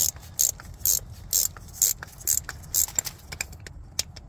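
Hand socket ratchet wrench clicking in short runs, about two strokes a second, as it backs out a transmission housing bolt. Near the end the clicking thins to a few lighter, sparser clicks.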